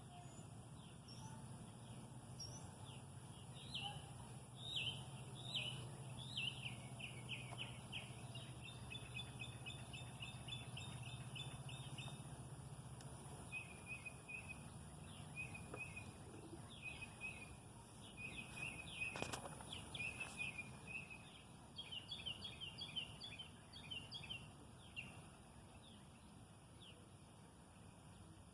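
Small birds singing: repeated quick chirps and rapid trills. A low steady hum underneath fades out about halfway through.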